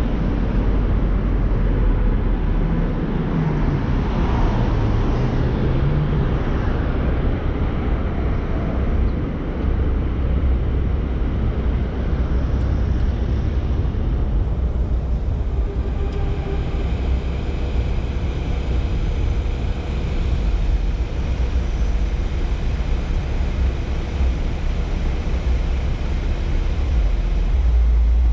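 Car driving on city streets: a steady low rumble of engine and tyres on the road, with the engine note rising and falling a few seconds in.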